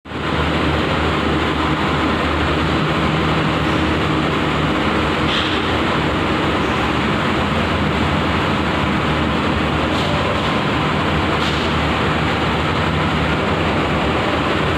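Steady drone of workshop machinery running, a low hum under an even noise, with a few faint clicks.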